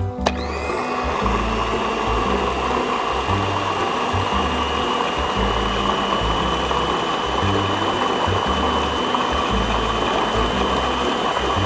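An electric food processor is switched on. Its motor whines up to speed and then runs steadily as it purées chopped apple, onion, kiwi and orange.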